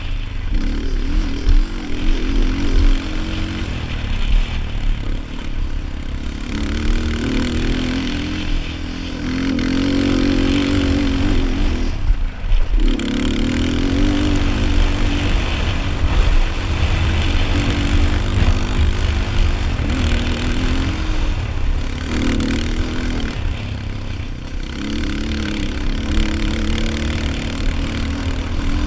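Yamaha Raptor 250 quad's single-cylinder four-stroke engine revving hard under racing throttle, its pitch rising and falling again and again as the throttle is opened and shut, with a short drop in the engine note about twelve seconds in. A heavy low rumble runs underneath throughout.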